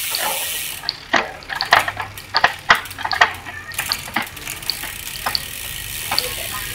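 Shimano Ultegra 11-speed bicycle drivetrain running on a stand. The chain clicks and clunks repeatedly as the rear derailleur shifts it across the cassette, over the steady whirr of the spinning rear wheel.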